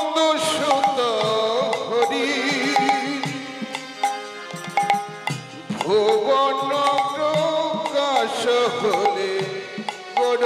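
Kirtan music: a male voice sings a drawn-out, ornamented devotional line over a hand drum keeping time. The singing dips briefly about five and a half seconds in and then picks up again.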